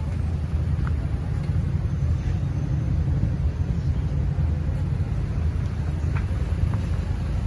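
Mazda 3's engine idling: a steady low rumble.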